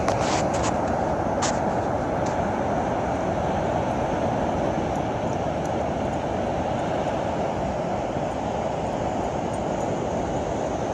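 Ocean surf breaking on a sand beach: a steady, unbroken rush of noise. A few sharp clicks fall in the first two seconds.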